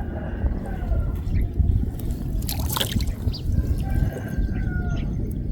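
Water dripping and splashing as a gill net is pulled up out of floodwater, with a few short splashes.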